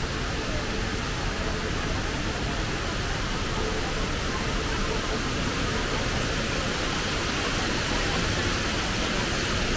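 The HSBC Rain Vortex indoor waterfall: a large mass of falling water making a steady, even rush.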